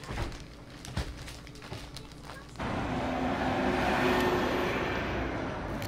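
Light clicks and rustling of belongings being handled while packing. About two and a half seconds in, the sound cuts suddenly to the steady, louder noise of a moving vehicle.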